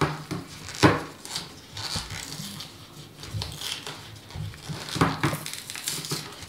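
Irregular rustling and scraping as an adhesive sticker is peeled off a cardboard box and the box is handled, with a few sharper snaps, the strongest about a second in and about five seconds in.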